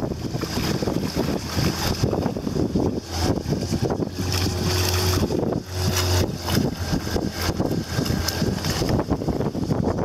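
Wind buffeting the microphone of a camera riding on an inflatable river raft, over the wash of river water. The rumble comes in uneven gusts and is heaviest in the middle.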